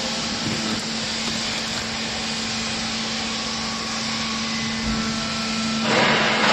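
Hydraulic baler's power unit running: a steady hum with an even mechanical hiss, which grows louder near the end.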